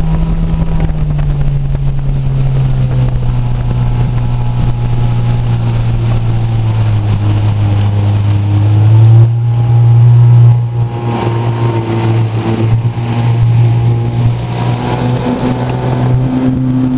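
Motorboat engine running with a steady low drone. Its pitch drops about a second in and it is loudest from about nine to ten and a half seconds in.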